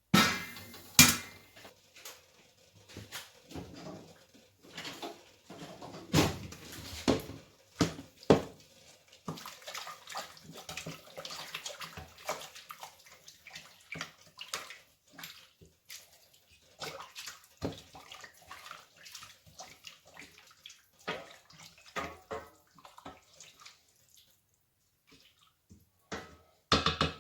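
Boiling water poured into a pot of thin vermicelli, going in short splashing pours on and off.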